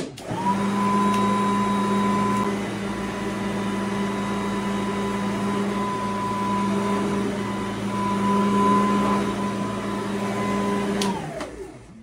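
Tornado Roam upright vacuum cleaner switched on with a click, its motor spinning up within half a second to a steady hum with a whine, and switched off near the end with a click, the motor winding down.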